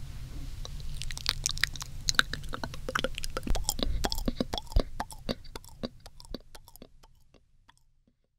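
Close-up wet mouth sounds on a binaural microphone: a dense run of sharp tongue and lip clicks and smacks that thins out and fades away to silence near the end.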